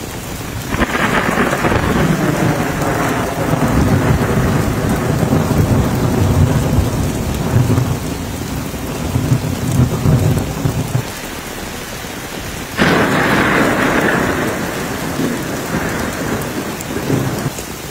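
Heavy rain falling steadily on a muddy lane, with two peals of thunder. The first is a long rumble that begins about a second in and rolls for some ten seconds. The second is a sudden crack about thirteen seconds in that rumbles away over the next few seconds.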